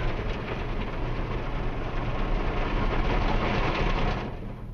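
Rotating brushes of a Mark VII Wesumat SoftWash car wash scrubbing over the back of an SUV, heard from inside the cabin as a dense scrubbing rush over the low rumble of the wash machinery. About four seconds in the scrubbing falls away, leaving the rumble.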